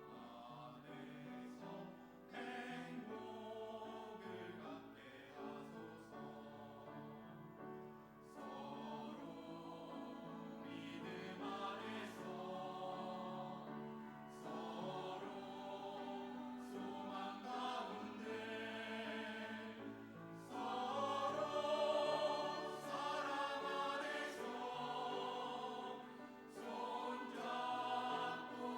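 A church group singing a gospel song as a choir over steady low accompaniment, growing louder about two-thirds of the way through.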